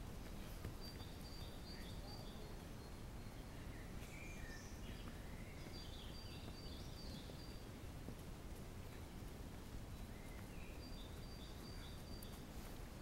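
Songbirds singing short, high, repeated phrases in three spells: at the start, in the middle, and again near the end. Under the song is a faint, steady low rumble.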